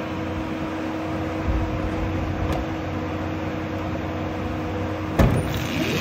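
Rimac Nevera four-motor electric hypercar sitting at the start line with a steady electric hum. Just past five seconds in comes a sudden thump, then a rising electric motor whine as the car launches.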